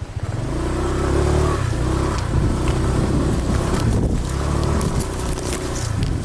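Motorbike engine running, its revs rising and falling every second or so.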